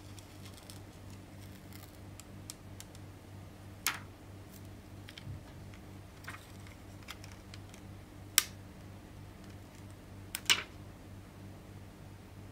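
Small clicks and crackles of thin plastic film being handled as the blue protective liner is peeled off a phone's adhesive frame gasket, with a few sharper clicks, the loudest about eight seconds in. A steady low hum lies underneath.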